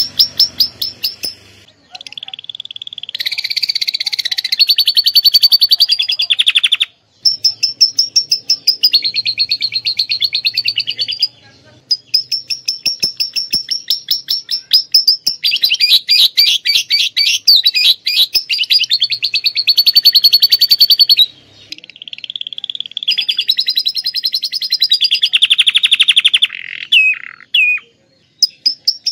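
Domestic canary singing long, fast rolling trills and chattering phrases, its song filled with imitated lovebird calls. The phrases run several seconds each, with short breaks between them.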